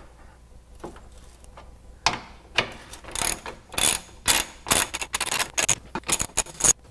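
A 15 mm wrench working bolts loose under the car: a quick run of sharp metallic clicks, about three a second, that starts about two seconds in and stops abruptly near the end.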